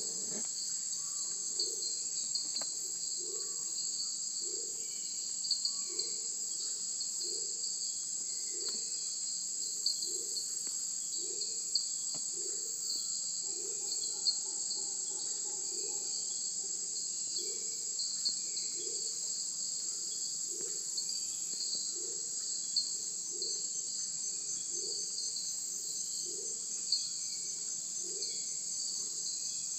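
A dense chorus of tropical insects, crickets or similar, giving a steady high-pitched buzz, with a low call repeating a little faster than once a second beneath it and a few faint bird chirps.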